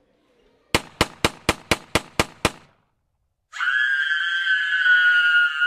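A rapid string of eight gunshots, about four a second, followed about a second later by a long, high-pitched scream.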